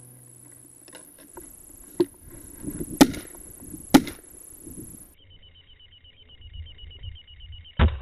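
Shotgun fired at flushing pheasants: two loud, sharp reports about a second apart near the middle, a fainter crack a second before them, and another shot near the end.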